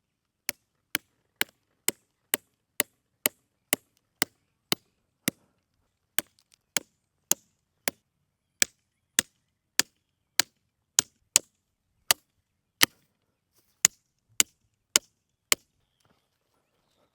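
A mini sledgehammer striking over and over, about two blows a second with a few short pauses, driving a stake into hard ground.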